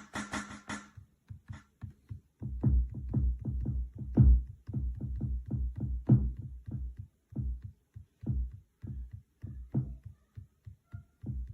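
Electronic drum samples triggered by finger drumming on the pads of a Native Instruments Maschine Mikro Mk3: faint scattered taps at first, then from about two seconds in a run of unevenly spaced hits, mostly deep kick-drum-like thumps.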